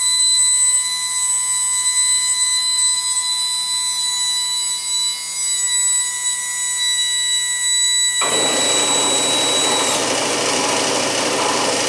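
Jet JAT-411 air-powered right angle micro die grinder running free with a steady high whine, its first break-in run after being oiled. About 8 seconds in, a loud, steady noise with a low hum starts suddenly, most likely the shop air compressor kicking on, and the grinder's whine stops about two seconds later.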